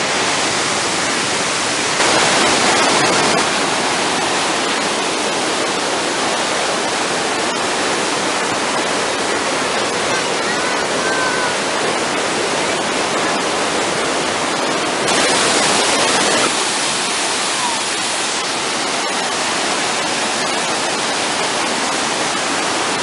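Steady, dense rush of the Iguazú waterfalls and river in heavy flood. It swells louder twice for a second or so, once near the start and once past the middle.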